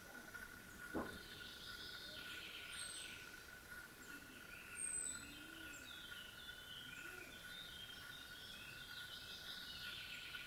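Faint birdsong, several stretches of warbling and chirping phrases, over a steady thin high-pitched whine, with a single click about a second in.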